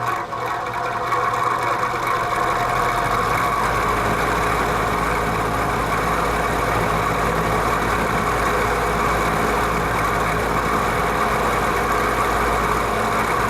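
Vintage Penncrest (rebadged Lakewood) metal box fan running on high: the motor comes up to speed in the first second or so, then holds a steady hum with a rattle like a diesel engine. The owner puts the rattle down to a faulty rear thrust washer in the motor.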